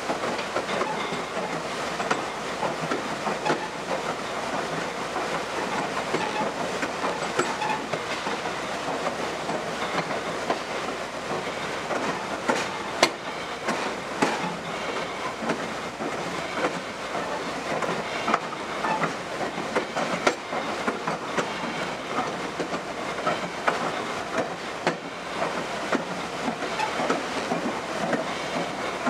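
Heritage passenger train rolling along the track, heard from the rear car. Its wheels give a steady rumble and rattle over the rails, with irregular clicks and a few sharper knocks.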